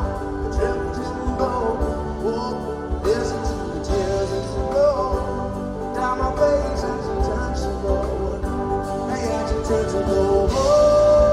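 Live band playing an instrumental passage, heard through an audience recording: a gliding lead melody over sustained chords and a steady low end, swelling near the end.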